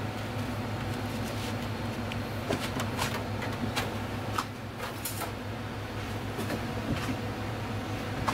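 Steady low hum of kitchen equipment, with scattered light clicks and taps through the middle seconds as the fried fish is handled on the dish.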